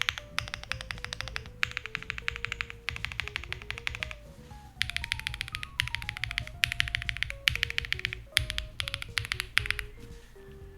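Fast typing on a mechanical keyboard fitted with Akko x Monsgeek Green Fog heavy linear switches: rapid runs of keystrokes bottoming out with a deep, marbly thock, broken by short pauses. Soft background music of single melodic notes plays underneath.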